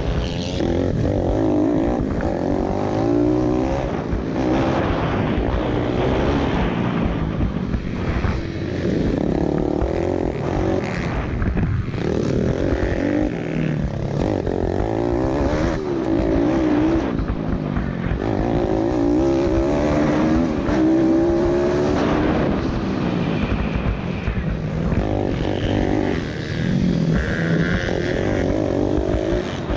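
Pit bike's four-stroke single-cylinder engine racing, its pitch rising and falling over and over as the throttle is opened and shut through the corners, with wind rush on the helmet-mounted camera.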